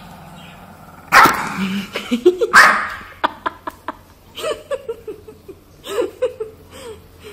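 Small long-haired dog growling low, then breaking into two loud snarling barks about a second and two and a half seconds in, followed by shorter growls. It is aggressively guarding a biscuit on its bed.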